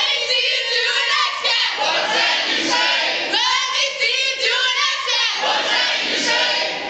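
A group of young voices chanting a cheer together, in two phrases.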